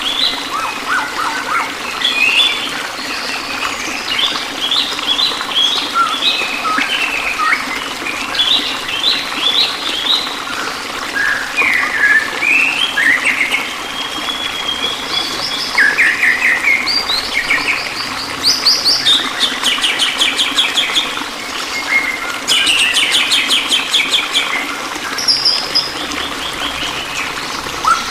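Songbirds chirping and singing throughout in short varied phrases, with fast buzzy trills. A steady rush of flowing water runs beneath them.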